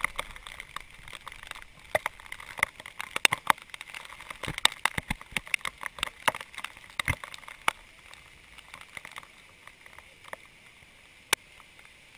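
Rain pelting the camera's housing: irregular sharp taps over a steady hiss, thick for most of the stretch and thinning out over the last few seconds, with one louder tap near the end.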